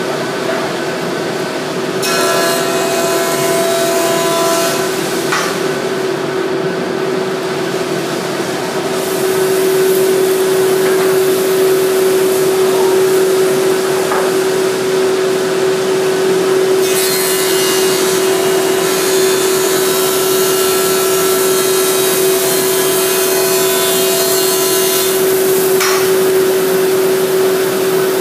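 Benchtop-style woodworking jointer running with a steady hum while hardwood boards are pushed across its cutterhead, squaring their faces and edges after glue-up. The rough cutting noise comes and goes with each pass and grows louder about nine seconds in.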